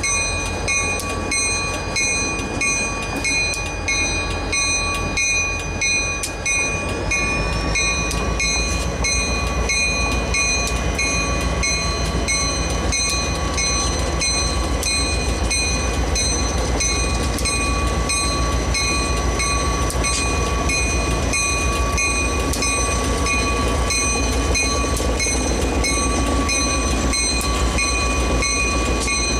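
DGNO diesel-electric freight locomotives pulling slowly away, their engines rumbling and growing louder about seven seconds in as the power comes up, with a locomotive bell ringing steadily at about two strokes a second.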